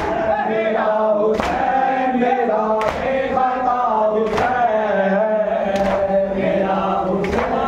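A group of men chanting a Shia noha (lament) in unison, with a sharp slap of many hands striking chests together (matam) about every second and a half.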